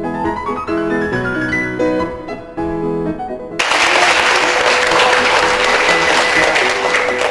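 Background music on piano and strings, with a rising run of notes; about three and a half seconds in, loud applause breaks in abruptly and continues, with a steady held tone beneath it.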